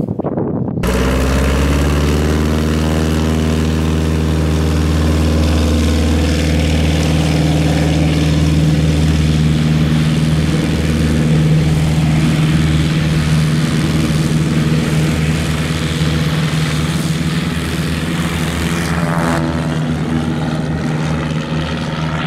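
Piper Super Cub's propeller engine at takeoff power: it comes in about a second in, rising in pitch as it throttles up, then holds a steady drone as the plane climbs out.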